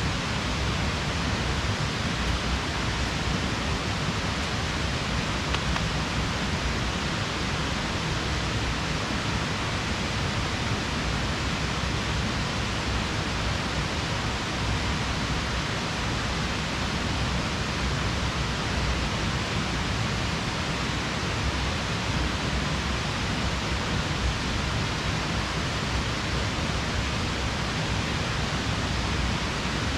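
Steady, even rushing noise that holds at one level throughout, with no distinct sounds standing out.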